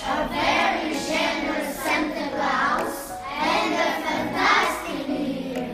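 A group of children singing together in chorus, in phrases of about a second with short breaths between.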